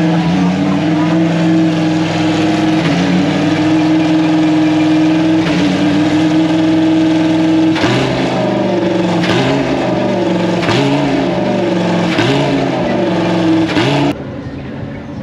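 Race car engine running loud at high revs, held fairly steady at first, then a series of gear changes about every second and a half, each marked by a sharp crack. It cuts off suddenly near the end.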